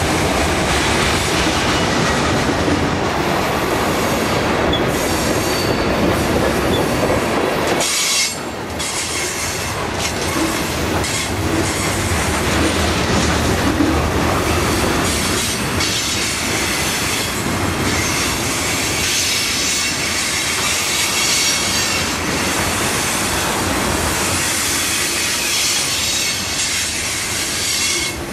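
Freight train tank cars and covered hoppers rolling past close by on curved track: a continuous rumble of steel wheels on rail with repeated clacks over the rail joints and faint wheel squeal. It briefly drops in loudness about eight seconds in.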